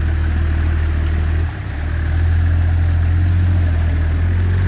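Toyota Land Cruiser 70-series pickup's engine running while the truck wades through deep muddy water: a steady low drone that dips briefly about a second and a half in, then picks up and holds a little louder.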